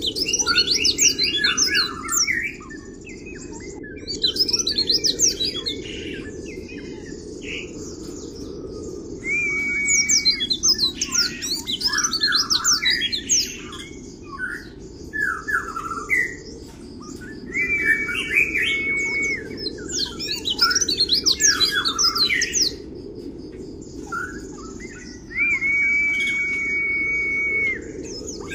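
Caged white-eye (pleci) singing a rapid, twittering 'kriwik' song in bouts of a few seconds, some bouts ending in a held steady whistle. A steady low background hum runs underneath.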